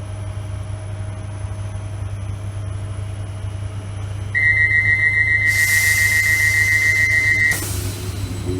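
A train's door-closing warning: a high beeping tone pulsing rapidly for about three seconds, starting about four seconds in, over the train's steady hum. A loud hiss joins the beeping about halfway through, and both stop together.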